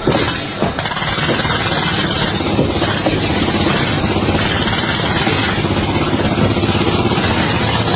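An engine running steadily, loud and noisy.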